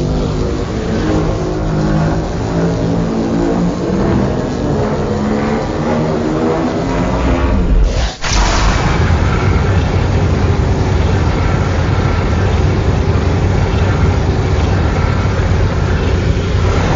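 Loud, continuous rumbling sound effect: a pitched drone that shifts in steps for about eight seconds, breaks off for an instant, then returns as a deeper, noisier rumble.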